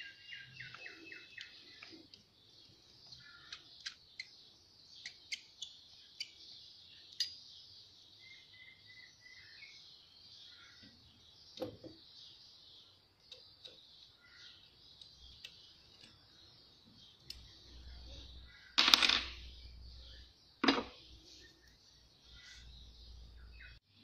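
Metal fuel lines and fittings of a diesel injection pump being handled on a wooden bench: scattered light clicks and taps, with two louder metal clanks about nineteen and twenty-one seconds in. Steady high-pitched chirping runs underneath.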